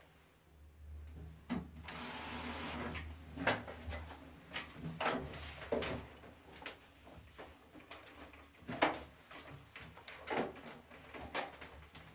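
Parts of a wall-mounted air conditioner being handled during disassembly: a steady rush with a low hum for the first few seconds, then a run of separate clicks and knocks.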